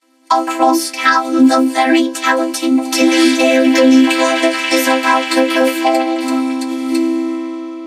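Vocoded voices: a sneeze-and-hiccup chorus put through a Vocodex vocoder, coming out as a held synthesizer-like chord. The chord is chopped by a quick string of short vocal attacks. It starts after a brief gap and fades down near the end.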